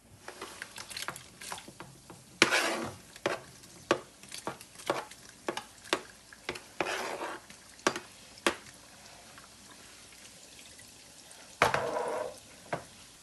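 Chinchin dough pieces frying in hot oil, stirred with a utensil that clicks and scrapes against the pan many times. Three louder sizzling bursts stand out, about two and a half, seven and twelve seconds in.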